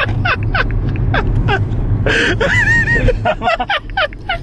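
People laughing hard inside a car, in quick repeated bursts with a louder squealing cry midway, over the steady low rumble of the car's cabin.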